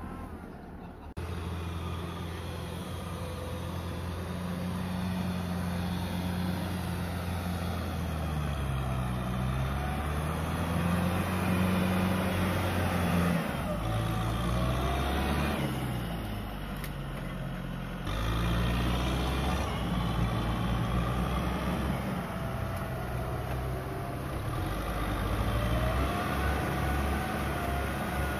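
Kubota tractor's diesel engine running hard in deep mud, its pitch rising and falling as it revs under load, with sudden shifts in level and pitch a few times.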